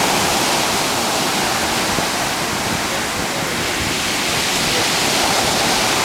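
Surf breaking and washing up the sand, a loud, steady rush of waves.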